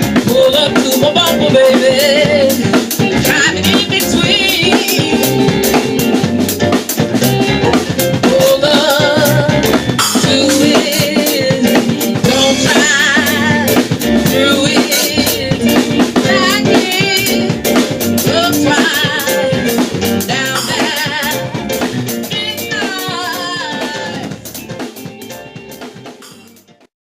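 Soul/R&B band music: a drum kit with snare and rimshot hits under a singer with vibrato, fading out near the end.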